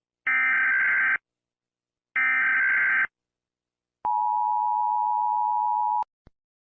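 Emergency Alert System SAME header: two digital data bursts of about a second each, the last of three, followed after a short gap by the EAS attention signal, a steady two-tone alarm near 1 kHz held for about two seconds and cut off sharply. A faint click comes just after the tone stops.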